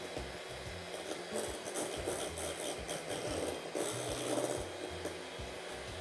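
Electric hand mixer running, its twin beaters whipping thick cream in a glass bowl, with the beaters rattling against the glass in short bursts around the middle. Background music plays underneath.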